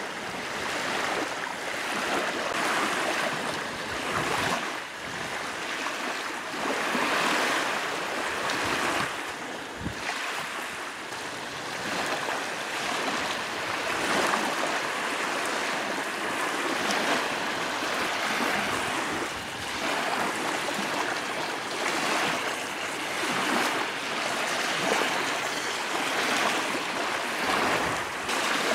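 Lake water splashing and lapping around a kayak under way, swelling and easing about every two to three seconds.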